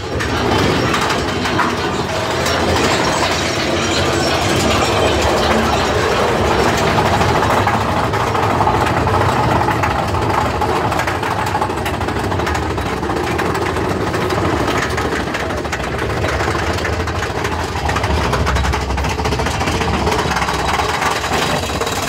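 Big Thunder Mountain Railroad mine-train roller coaster running on its track and hauled up a chain lift hill: a continuous clatter of many fine clicks.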